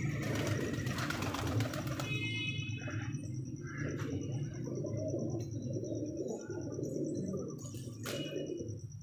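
Domestic pigeons cooing continuously, with a quick run of clicks in the first two seconds and a faint steady high-pitched tone behind.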